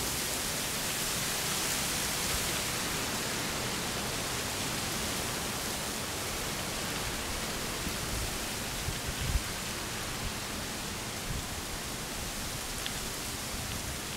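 Steady, even hiss with no clear single source, and a few brief low thumps about nine seconds in.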